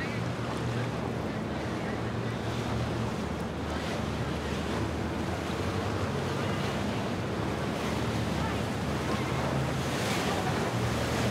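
Boat engines running steadily as a motor yacht moves slowly along the river, with water wash and wind on the microphone.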